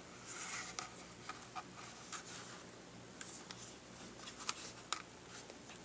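Faint scattered clicks and light taps with a brief soft rustle near the start: a handheld plastic car vacuum being turned over and handled.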